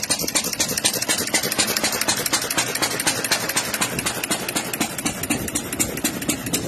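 John Deere 1.5 horsepower Model E hit-and-miss engine running steadily with a rapid, even mechanical clatter as it drives a wooden-tub ice cream freezer.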